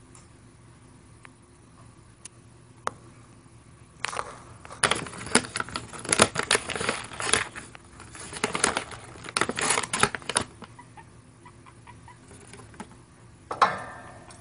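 Guinea pig scrabbling and rustling in loose, crunchy cage bedding: a dense run of crackles and clicks from about four to ten seconds in, and one more short burst near the end.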